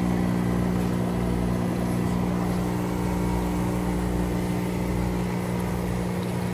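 Steady machine hum from the equipment of aerated live seafood tanks, holding one low pitch with overtones, under a steady hiss.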